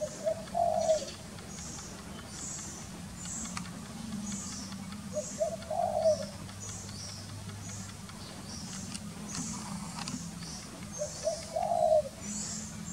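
A dove cooing, a short phrase three times about five to six seconds apart, over a high, quick chirp repeated steadily throughout.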